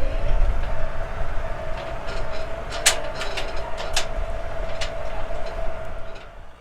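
A vehicle drives over rough ground: low rumble with a steady whine, and several sharp metallic clanks and rattles in the middle. The sound cuts off suddenly near the end.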